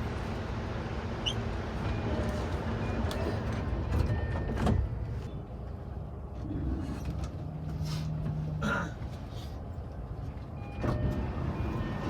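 Sliding passenger doors of a JR East E233-1000 series commuter train working amid steady train noise, with a thud about four and a half seconds in and a low steady hum that ends in another thud near nine seconds.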